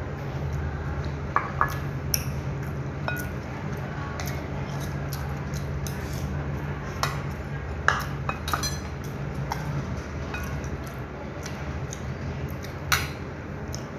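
Spoon and chopsticks clinking against porcelain bowls during eating, a scattering of short, sharp clinks with a brief ring, the loudest about eight seconds in and near the end, over a steady low hum.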